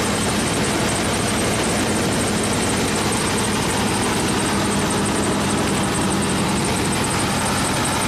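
1997 Ford F-150 engine idling steadily, heard close up in the engine bay, with the alternator charging the battery at about 14.3 to 14.9 volts.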